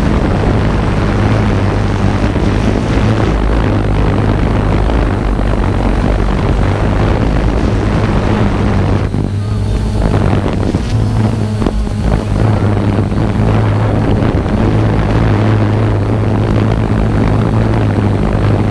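Multirotor camera drone's motors and propellers humming steadily, heard from the drone's own microphone. The propeller hiss thins out for a few seconds about halfway through while the low hum carries on.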